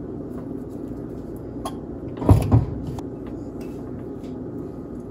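Two dull knocks about two seconds in, a quarter of a second apart, from kitchen items handled while seasoning chicken in a bowl, over a steady low hum.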